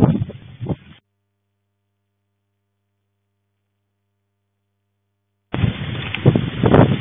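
Strong wind and heavy rain buffeting a security camera's microphone in gusts. About a second in the audio drops out to silence with only a faint hum, and the storm noise comes back about a second before the end.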